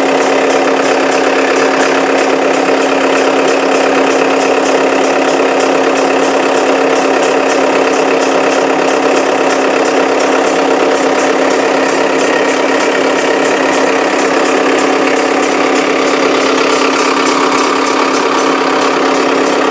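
Lebrero pump running with a steady hum and a fast, rough crackle over it: the growl ('ronquido') the recording was made to capture.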